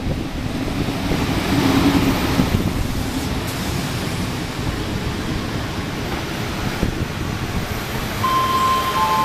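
A PKP Intercity passenger train hauled by an EP07 electric locomotive rolling past: a steady rumble and clatter of wheels on rail. Near the end, a ringing tone sets in, followed by a second, lower one.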